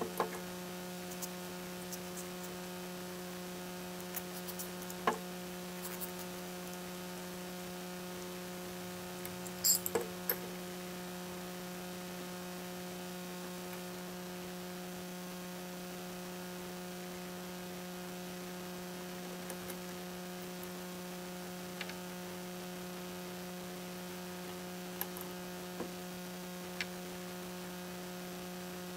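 Steady electrical hum with its overtones, with a few scattered light clicks and taps as greased parts of an antique Ford Model TT screw jack are handled and fitted back together; the loudest tap comes about a third of the way in.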